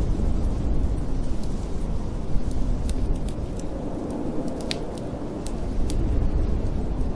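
Wood fire crackling with irregular sharp pops, over a steady low rumble of howling storm wind.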